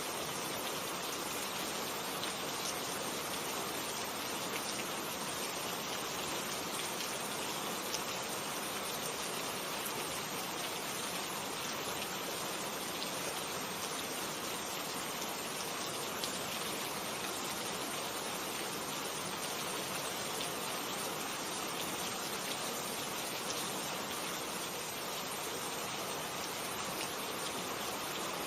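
Steady rain falling: an even, unbroken hiss with a few sharper drop ticks.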